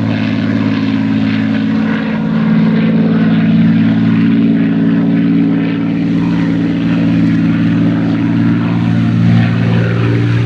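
Supermarine Spitfire Mk XVI in flight overhead, its Packard Merlin 266 V12 piston engine and propeller making a steady, low drone.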